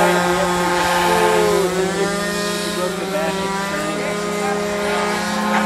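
Small model airplane engine running steadily at high revs on the ground, a constant buzzing hum.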